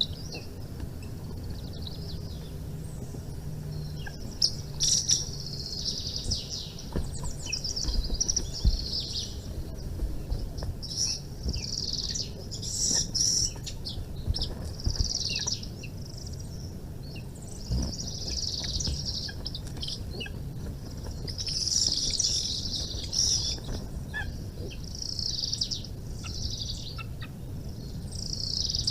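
Birds chirping in repeated bursts of quick high chirps, each burst a second or two long, coming every few seconds.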